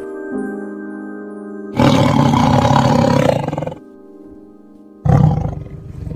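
Tiger roaring twice, a long roar and then a shorter one, over steady background music.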